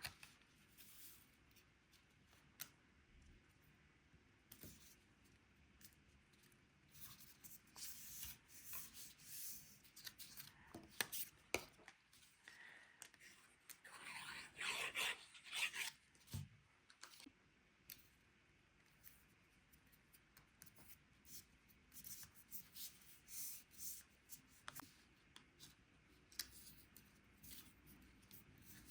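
Faint handling of cardstock paper pieces: rustling, sliding and small taps and clicks on a work surface, with a louder spell of rustling about halfway through.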